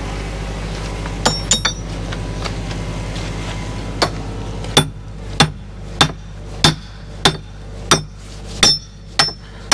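Lump hammer striking a steel excavator bucket tooth to drive its retaining pin home: a few light taps, then a steady run of about nine ringing metal-on-metal blows, a little under two a second. The excavator's engine runs steadily underneath.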